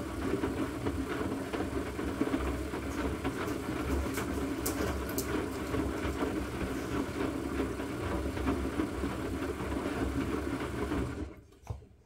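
Asko 12605 front-loading washing machine tumbling its drum during a rinse: the motor runs steadily, then stops abruptly near the end.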